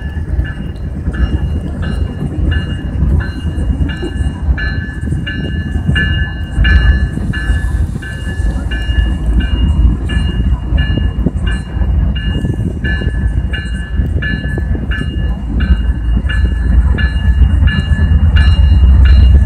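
Norfolk Southern diesel locomotives moving slowly, the engines' low rumble under a locomotive bell ringing steadily at about three strokes a second. The rumble grows louder near the end as the lead unit draws closer.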